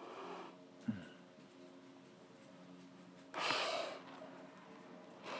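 A blue-tongue skink gives one short, sharp hiss about three seconds in, a defensive exhale at being handled. Before it comes a brief low thump about a second in.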